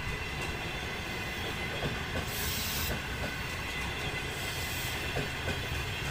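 A train running past on the rails: a steady rumble of wheels with a few faint clicks, and a brief hiss about two and a half seconds in.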